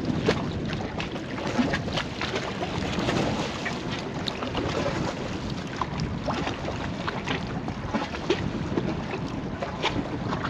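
Wind buffeting the microphone over small waves lapping and splashing against shoreline rocks, with many short irregular slaps and ticks.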